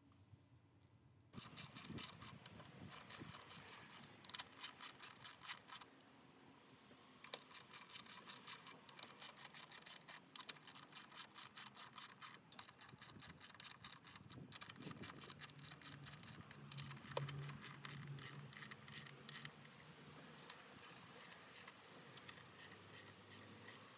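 A socket ratchet clicking rapidly as the thermostat housing bolts are tightened down. It goes in several runs with short pauses between them.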